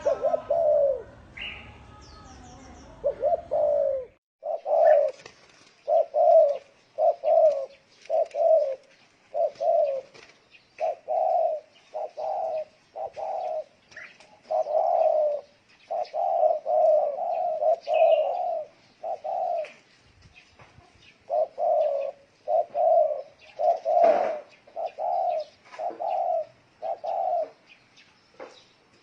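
Spotted dove cooing over and over in short runs of low coo notes, the bow-and-coo calling song, with faint higher chirps of small birds behind it.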